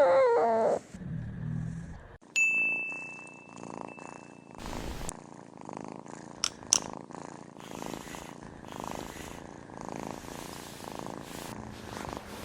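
Domestic cat purring in irregular low pulses, with a short wavering pitched call at the very start and a bell-like ding ringing for about two seconds a couple of seconds in; a couple of small clicks in the middle.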